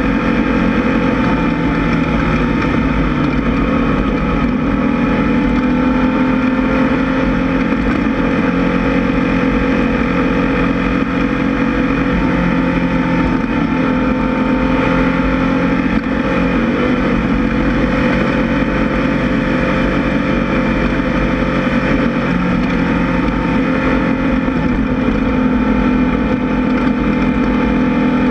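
Air-cooled VW 1600 flat-four of a Class 1600 off-road race buggy running hard at fairly steady revs, its pitch dipping and climbing a little every few seconds.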